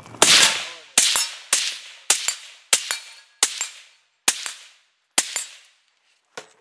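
Suppressed AR-15 rifle fitted with a Dead Air Sandman S silencer firing about eight shots, one at a time, roughly half a second to a second apart and slowing toward the end. Several shots are followed a moment later by a fainter sharp snap. The firing stops a little over five seconds in.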